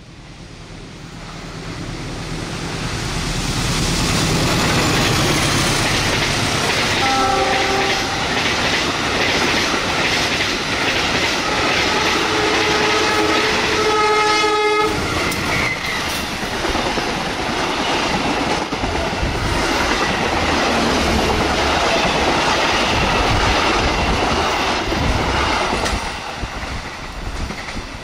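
Diesel-locomotive-hauled passenger train passing close, its engine and wheels building up and then clattering over the rail joints. A multi-tone horn sounds briefly about a quarter of the way in, and again for longer around halfway.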